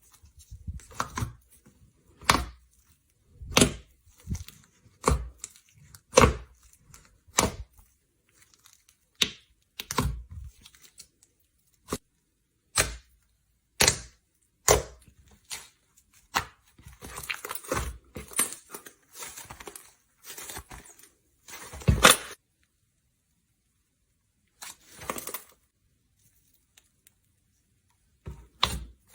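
Slime being handled, giving sharp crackling pops about once every second or so, then a denser run of crackling that ends in a loud snap.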